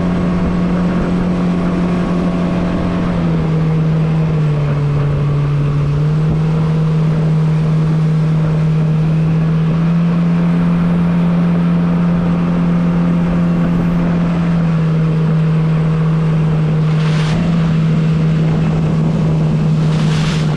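Outboard motor running at steady speed, driving a small aluminum fishing boat through a narrow weedy channel. Its pitch dips briefly about four seconds in and changes a little later, and two short rushes of noise come near the end.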